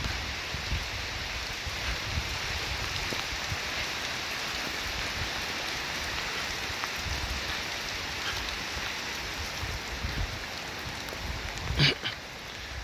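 Heavy rain falling steadily, with an uneven low rumble of wind on the microphone. A brief voice is heard near the end.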